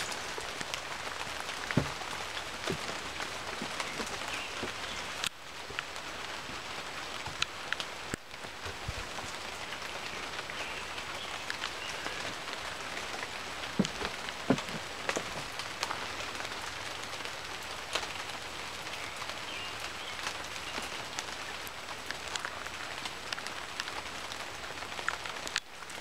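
Steady rain falling on dense foliage, with louder single drops now and then.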